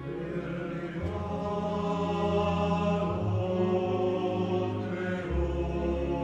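Music with sustained, chant-like choir voices over held low notes; the low note shifts about a second in, again near the middle, and once more near the end.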